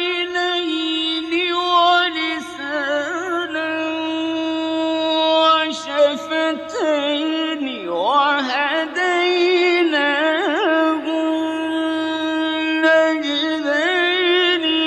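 A male Quran reciter's voice in mujawwad-style melodic recitation, drawing out a long held note with wavering, trilled ornaments and no clear words.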